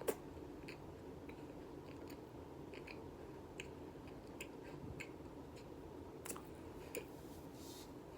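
Someone chewing baked Argo cornstarch chunks: faint crisp crunches and small clicks about once a second, with a sharper crunch right at the start.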